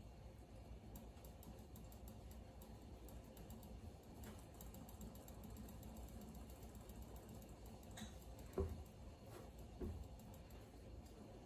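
Hands rubbing and tossing shredded kadayif (kataifi) pastry in a ceramic bowl to coat it with melted butter: faint, crisp crackling of the strands, with two soft knocks about two-thirds of the way through.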